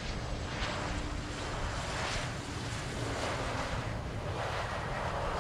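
Jet airliner engine roar, a steady rushing noise that swells a little now and then, with wind buffeting the microphone.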